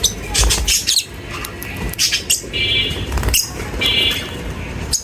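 Lovebirds squawking and chirping: clusters of short, sharp, high-pitched calls, with two brief buzzy held notes around the middle.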